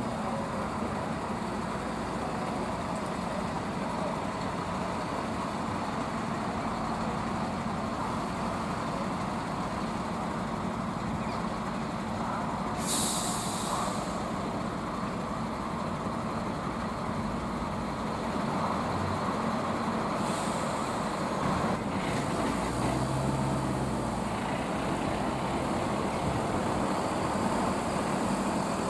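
A convoy of diesel emergency trucks rolling slowly past with steady engine and tyre noise, and a short sharp air-brake hiss about thirteen seconds in, with a fainter hiss around twenty seconds.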